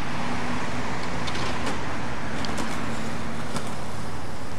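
Steady rumble and hiss of road traffic, with a faint held engine tone and a few light clicks.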